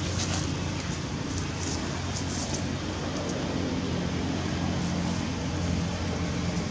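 Steady low background rumble with a few faint, short, light rustles.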